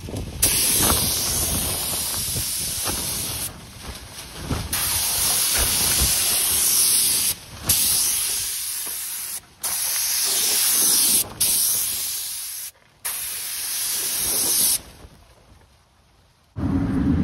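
Gravity-feed air spray gun hissing as paint is sprayed, in about six trigger pulls of one to three seconds each with short breaks between, stopping shortly before the end.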